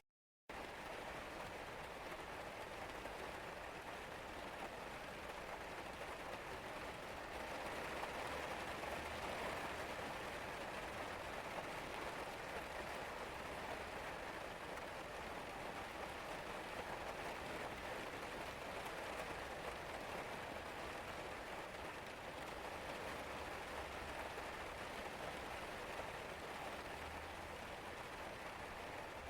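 Steady rain falling, an even patter of drops on a surface that swells a little from about seven seconds in. The sound cuts out for a split second right at the start.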